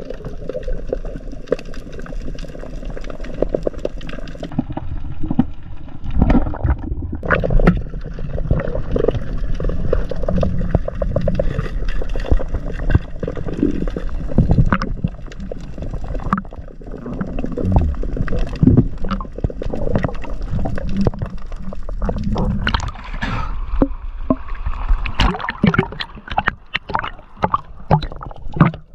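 Muffled underwater water noise picked up through a camera's waterproof housing: gurgling and sloshing, with many small irregular clicks and knocks, more of them toward the end.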